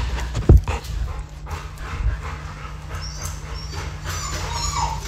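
A dog whimpering in short high calls in the second half, after a sharp knock about half a second in, over a steady low hum.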